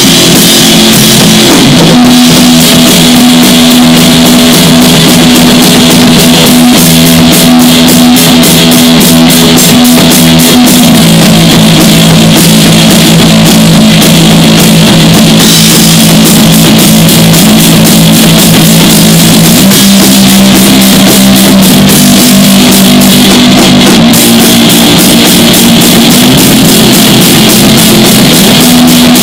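Rock improvisation on electric guitar and drum kit: a hollow-body electric guitar holds low notes that change every few seconds, over steady drumming with a constant wash of cymbals.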